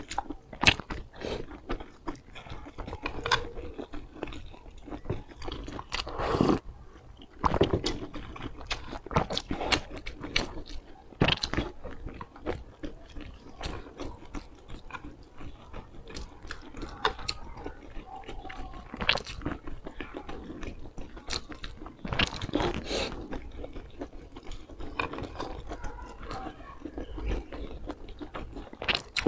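A person chewing and biting into steamed buns (baozi) in chili oil, with many short, irregular clicking mouth sounds.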